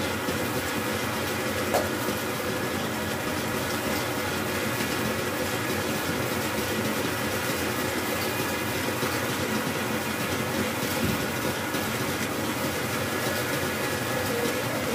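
Stand mixer's motor running steadily, its wire whisk whipping meringue in a steel bowl. There is one brief knock about two seconds in.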